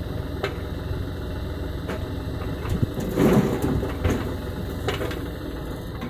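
Diesel engines of a JCB 3DX backhoe loader and a farm tractor running steadily. About three seconds in there is a louder rush of soil and the digging bucket, and a few sharp knocks come at intervals.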